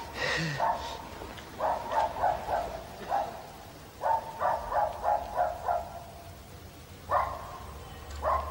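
A dog barking in quick runs of short barks, then single barks near the end.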